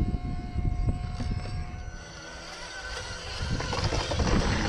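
Wind rumbling on the microphone over a faint steady high whine. About two seconds in it drops away, then a gritty hiss builds over the last second or two.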